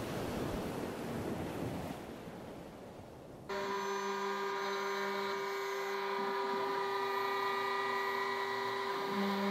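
A steady rushing noise that fades somewhat, then, about three and a half seconds in, a sudden switch to a CNC milling machine's spindle running as it cuts a sheet: a steady whine of several pitches with a rougher hum underneath.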